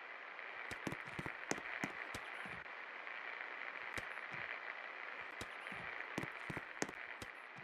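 56-inch Paradise industrial ceiling fan running, a steady whoosh with a hiss-like band on top, broken by irregular sharp clicks.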